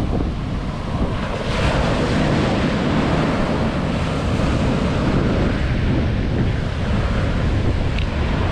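Ocean surf breaking and washing up the beach, with a low rumble of wind on the microphone. The wash swells louder about a second and a half in and holds steady after that.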